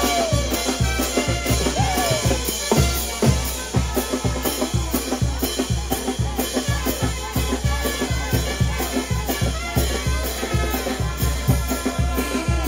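A live brass band with saxophones and a drum kit playing dance music, driven by a steady bass-drum beat.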